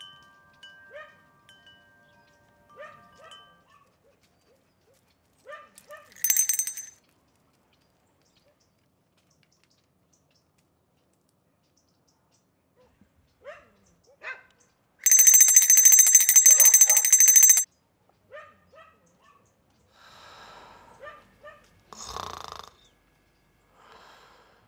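Metal wind chimes ringing, then a dog barking now and then behind a wire fence. About fifteen seconds in comes the loudest sound, a rapid ringing like a bell being struck over and over, lasting about two and a half seconds.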